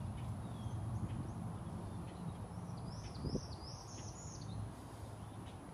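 Outdoor ambience with a steady low rumble, and a bird singing a quick run of high chirps for over a second, starting about three seconds in.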